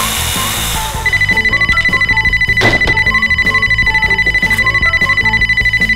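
Telephone ringing: a high electronic ring that trills rapidly and evenly, starting about a second in, over background music.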